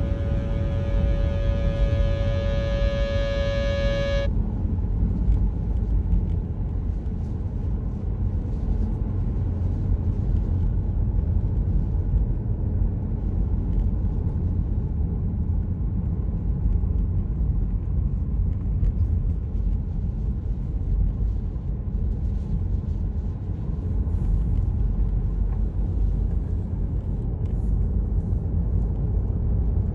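A car driving, a steady low rumble of road and wind noise. Music ends on a held chord that cuts off suddenly about four seconds in.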